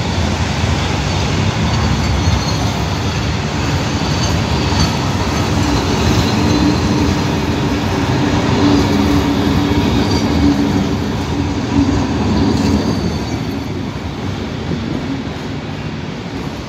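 Passenger train coaches rolling past on the rails: a steady wheel-and-rail rumble, with a steady tone over it in the middle, easing off near the end as the last coach clears.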